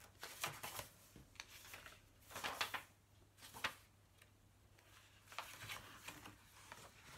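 Pages of a small paper booklet being leafed through by hand: a series of short, faint paper rustles and flicks, the longest about two and a half seconds in.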